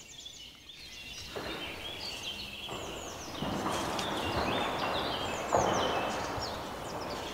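A large tree falling in the woods: a long rushing crash of trunk and branches that swells over several seconds, loudest about three-quarters of the way through. Birds sing over it.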